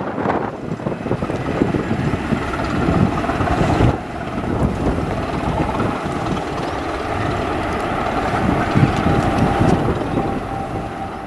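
Southern Region 'Thumper' diesel-electric multiple unit running along the line, its English Electric four-cylinder diesel engine giving a steady, heavy thumping drone, with some rumble from the wheels on the rails. The sound fades a little near the end as the train pulls away.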